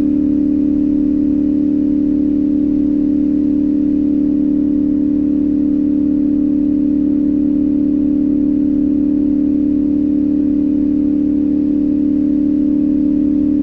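2025 CFMOTO 450SS's parallel-twin engine running steadily under constant throttle while cruising, one even hum that holds the same pitch throughout with no revving or gear changes.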